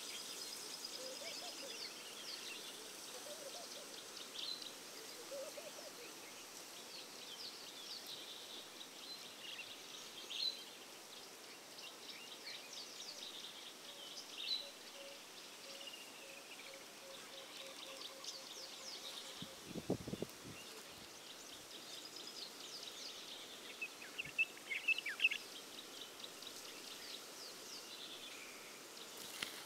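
Birds chirping and calling on and off over quiet bush ambience, with a brief low thump about twenty seconds in and a flurry of louder chirps a few seconds later.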